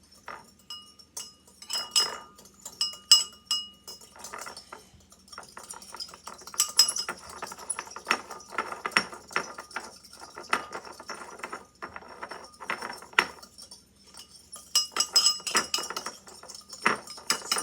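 A small metal fork stirring baking soda into warm water in a bowl, clinking and scraping against the bowl's sides. A few separate ringing clinks at first, then quick, almost continuous clinking from about five seconds in.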